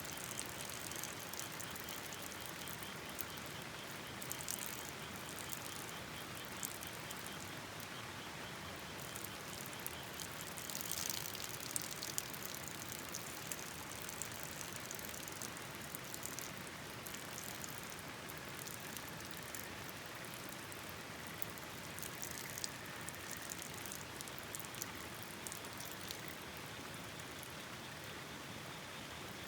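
Steady rush of river water, dotted with scattered sharp ticks and pops that cluster briefly about eleven seconds in.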